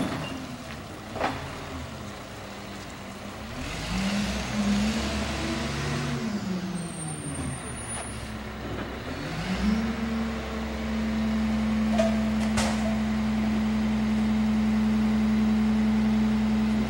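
Engine of a CCC Wittke manual side loader garbage truck, a diesel, running as the truck moves off and stops: the engine speed drops, rises and falls again, then climbs about ten seconds in and holds at a steady, raised idle. A couple of short sharp clicks or hisses come near the start and about twelve seconds in.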